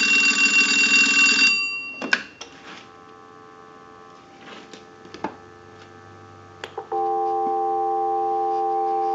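Payphone ringer bell ringing one last burst, which stops about a second and a half in, followed by a clunk. After a few quiet seconds with a few faint clicks, a steady telephone dial tone comes on about seven seconds in, heard through an amplified receiver pickup.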